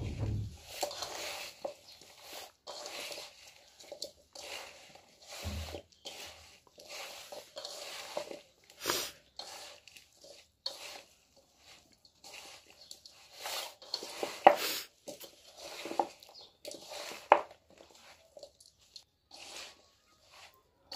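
Hands tossing and squeezing spice-coated dried radish pieces in a stainless steel bowl: irregular crunching and rustling, with a few sharper clicks and a low thump near the start and again about five seconds in.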